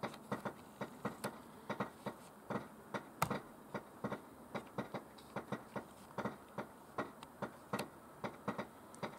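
A run of light, fairly regular clicks, about four a second, with one sharper click about three seconds in.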